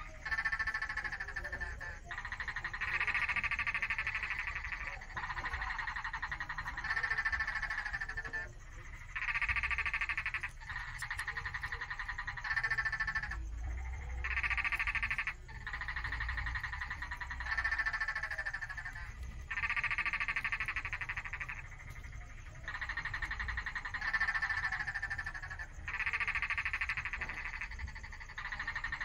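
Chorus of pulsed, trilling animal calls, each trill lasting one to two seconds and starting and stopping sharply, repeating over and over with short gaps.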